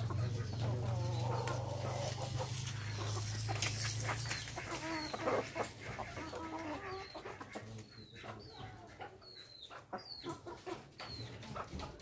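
Birds calling: low wavering calls in the first couple of seconds, then short high falling chirps mixed with a scatter of clicks. A steady low hum underneath stops about four seconds in.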